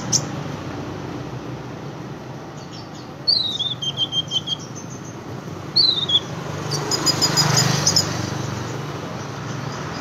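Caged sunbird singing in short phrases: a quick falling run of high chirps about three seconds in, a shorter one near six seconds, then a rapid string of very high ticking notes around seven to eight seconds, over a steady hum of street traffic.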